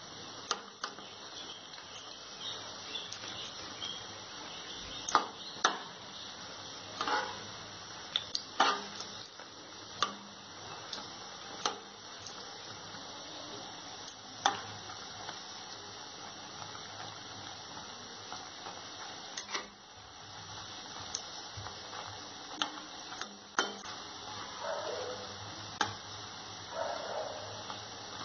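Egg pakoras deep-frying in hot oil in a metal pan: a steady sizzle, with a metal spatula clicking, knocking and scraping against the pan at irregular moments as the pakoras are turned over.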